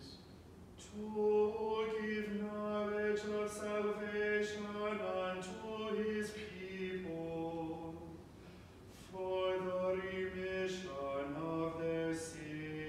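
Unaccompanied chanting of liturgical text, each phrase sung on long held notes, with a short break about eight seconds in.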